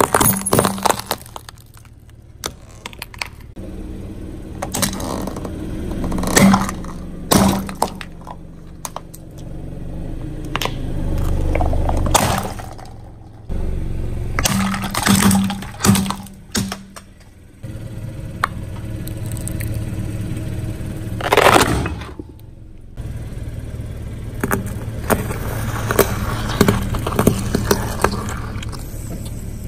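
A car tyre slowly rolling over and crushing brittle plastic objects, such as bead-filled toy bottles and plastic cups: a series of sharp cracks, snaps and crunches, with the low hum of the car's engine between them.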